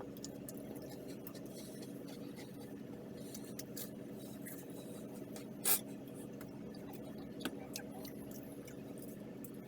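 Steady low hum of several even tones, with faint scratching and small clicks scattered through it and one sharper click a little past halfway.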